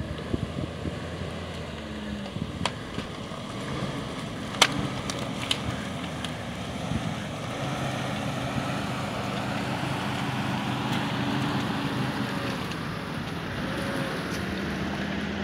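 Engines of a lifted pickup and a Jeep Wrangler crawling slowly along a dirt trail, the pickup towing the Jeep on a strap; the steady engine hum grows louder in the second half as the vehicles come closer. A few sharp clicks stand out in the first half.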